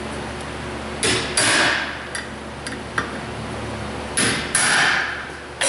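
Hammer blows on a hand impact driver seated in a brake rotor's retaining screw: each blow drives the bit into the screw head and turns it to break the screw loose. The sharp metallic strikes come in two pairs, about a second in and about four seconds in, and one more at the very end, each with a brief ring.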